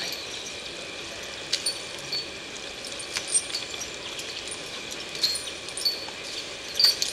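Water running steadily onto wet ground, with a few short high chirps and light clicks now and then.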